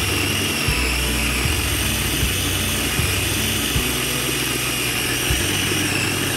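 KitchenAid mini food chopper running at speed, a steady high motor whine with a light knock repeating a little more than once a second, as it purees a creamy sauce.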